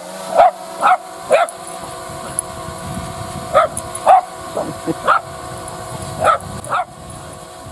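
Small dog barking sharply at a low-hovering quadcopter drone, about nine barks in quick runs of two or three. Under the barks, the drone's propellers give a steady whine.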